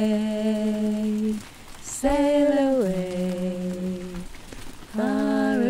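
Unaccompanied singing of a slow song in long, held notes. There are three sustained phrases, each a second or two long, with short gaps between them; the middle one drops in pitch partway through.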